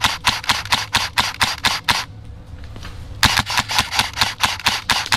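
Airsoft AK-105 replica rifle firing rapid strings of shots, about seven a second: one string stops about two seconds in, and another starts a little over a second later and runs nearly to the end.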